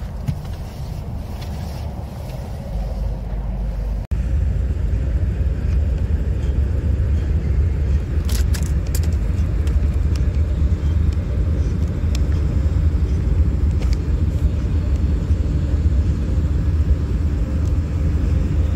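Diesel locomotives running past with a loud, steady low rumble and engine hum. The sound jumps suddenly louder about four seconds in.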